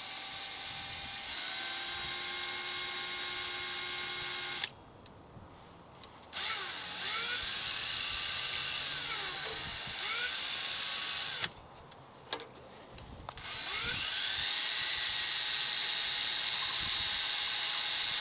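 Hand drill running in reverse, spinning a Vortex Power Mixer's steel shaft and paddles in small paint cans. The motor whine rises as it spins up, holds steady, and stops about 5 seconds in and again about 11 seconds in, with a short burst before the last long run.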